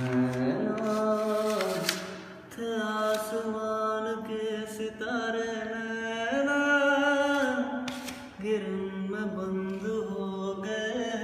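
A man singing, holding long notes that step and slide between pitches, in three phrases with short breaths between them.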